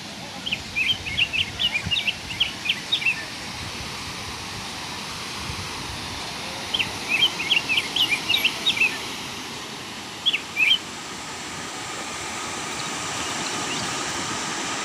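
A bird chirping in quick runs of sharp, high notes, three bursts with pauses between, over a steady rush of falling water from the waterfall.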